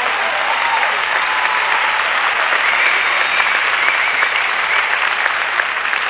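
Spectators applauding steadily and continuously for a German Shepherd being gaited, with a high wavering tone over the clapping around the middle.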